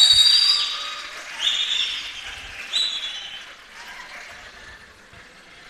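Audience laughing, with high-pitched cries over the laughter: loudest at the start, two more waves about a second and a half and three seconds in, then dying away.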